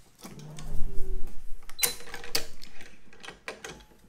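Racquet stringing machine tensioning a main string: a brief steady mechanical whir lasting about a second, then a series of sharp clicks and clacks from the machine's parts.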